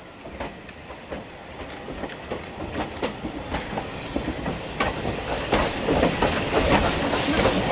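Narrow-gauge passenger coaches, ex-Hungarian MÁV stock, rolling past with a low rumble and irregular clickety-clack of wheels over the rail joints. It grows louder and the clicks come thicker as the train draws past.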